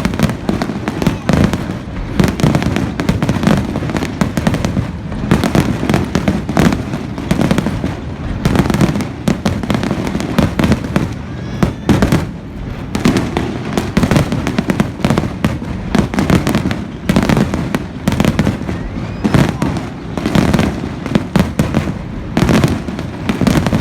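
Fireworks display: a rapid, continuous barrage of bangs and crackles that keeps going without letup.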